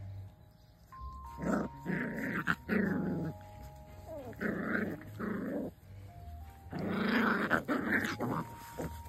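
Jack Russell puppies play-growling as they wrestle, in three rough bouts, over soft background music with long held notes.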